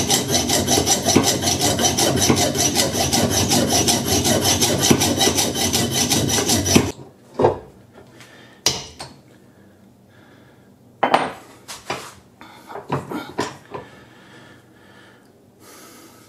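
Hand metal saw cutting through a steel wrench held in a vise, in quick, even strokes about five a second, stopping abruptly about seven seconds in as the cut finishes. A few separate metal knocks and clinks follow as the cut piece and the vise are handled.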